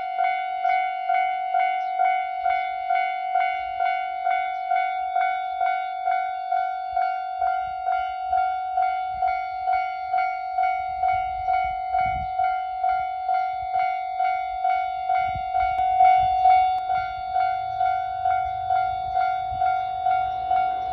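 Japanese level crossing warning bell ringing, a single-pitched electronic clang repeating steadily about twice a second. A low rumble builds over the last few seconds as a train approaches the crossing.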